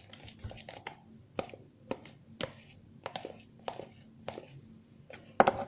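Homemade shampoo-and-toothpaste slime being squeezed and worked by hand, giving short sticky clicks and pops about twice a second, louder near the end.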